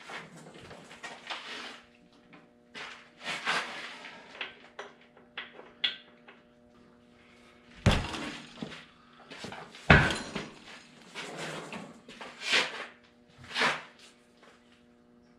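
Metal clanks and knocks as a Farmall Cub rear wheel is worked onto the axle hub and its nuts are started on the studs, with two heavy thuds about eight and ten seconds in. A low steady hum runs underneath for most of it.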